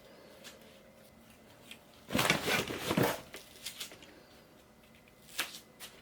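Rustling and scratching: a loud burst about two seconds in that lasts about a second, a few light clicks after it, and a shorter scrape near the end.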